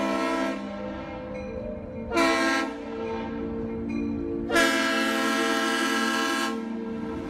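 Diesel locomotive's air horn blowing for a grade crossing in separate chords: a blast that ends about half a second in, a short blast around two seconds in, then a long blast of about two seconds. This is the close of the standard long-long-short-long warning for a crossing.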